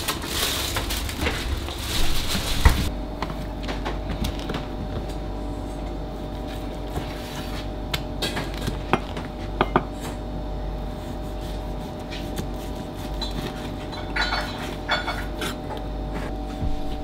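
Chef's knife slicing through a block of raw pork belly, the blade knocking sharply on the cutting board now and then, with a quicker run of knocks near the end, over a steady hum of kitchen equipment. For the first three seconds there is a louder, even hiss of kitchen noise.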